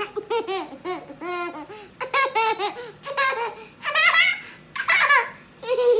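A toddler laughing hard, a long run of short high-pitched laughs one after another, loudest around four to five seconds in.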